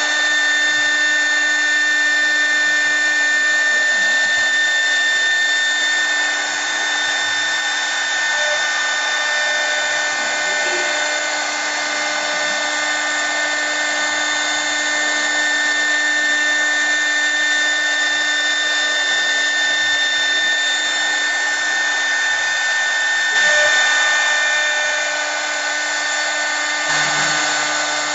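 CNC wood lathe running: a steady machine whine over a dense hiss, swelling briefly about 23 seconds in, with a low hum joining near the end.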